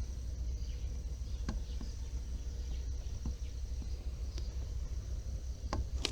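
A few faint, scattered clicks and taps of a screwdriver working at a nail in a scooter's tubeless tyre. Behind them run steady insect chirping and a low rumble.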